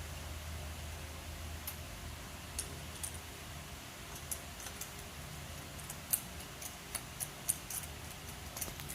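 Scattered light metallic clicks and taps of hand tools and parts being handled during a coil pack and spark plug swap, irregular, bunching into a quicker run about six seconds in, over a faint low hum.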